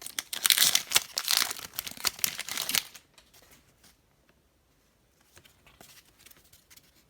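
The wrapper of a hockey trading-card pack is torn open and crinkled for about three seconds. After that come only faint, light ticks.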